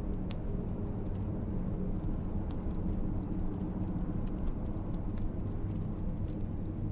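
Wood fire crackling, with scattered sharp pops and ticks over a steady low rumble.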